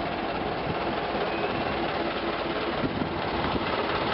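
Vintage car engine running steadily, an even mechanical chugging without pauses. There is one small knock about three seconds in.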